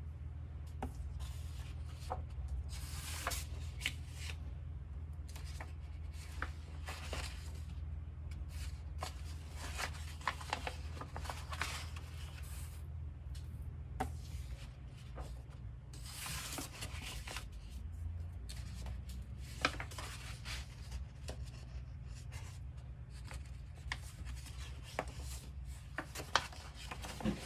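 Large paper poster pages of a softcover book being unfolded and turned by hand: irregular rustling, sliding and crinkling swishes of paper, over a low steady hum.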